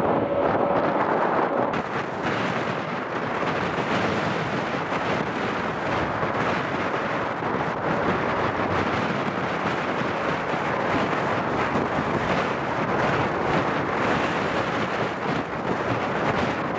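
Boeing 737 airliner's twin jet engines running in a steady roar as it comes in on final approach and lands. For the first couple of seconds a light propeller plane's engine drones with a steady tone.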